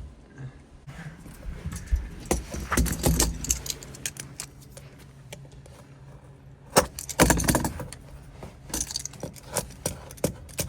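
Crinkling, clicking handling noise of foil-backed Kilmat sound-deadening sheets being worked onto a car floor pan, in two busy stretches, the second near the end.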